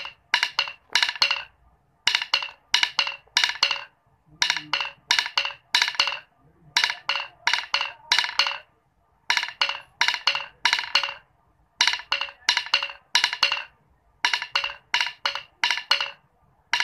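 A pair of wooden drumsticks tapping on a hard tile floor, used as a practice surface. They play a march rhythm counted '1 1 2 1 2 3' at normal speed: short phrases of quick sticking strokes repeating about every two seconds, with brief gaps between them.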